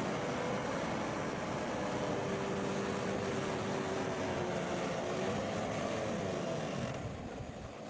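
Bulldozer's diesel engine running steadily, its pitch dipping and rising a little midway and easing off near the end.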